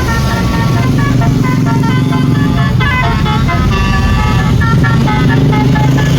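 Tour bus's multi-tone "telolet" horn playing a quick tune of short notes that step from pitch to pitch, with the bus engine running underneath.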